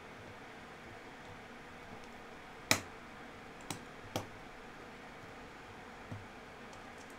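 A few sharp clicks from a folding knife and its small parts being handled during reassembly: one loud click a little under three seconds in, two lighter ones about a second later, and a faint one near the end.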